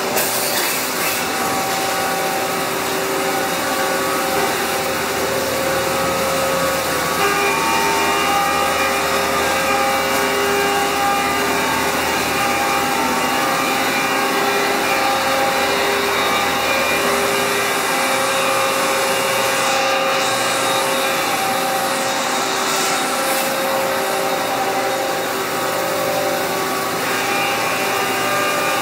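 Steady mechanical running noise of a powered-up Doosan Puma V550 CNC vertical turning center: an even hum and hiss with several steady whining tones.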